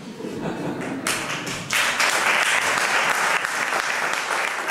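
Theatre audience applauding: a dense patter of many hands clapping that starts about a second in and swells about a second later.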